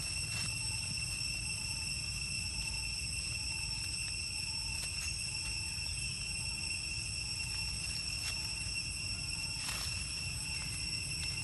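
Insects droning in one steady high-pitched tone, over a low steady rumble, with a few faint ticks.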